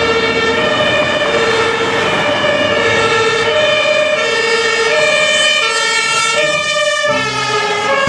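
German fire engine's two-tone siren (Martinshorn) sounding in city traffic, a low and a high note alternating evenly about every half second. A second, higher-pitched two-tone siren overlaps in the later part.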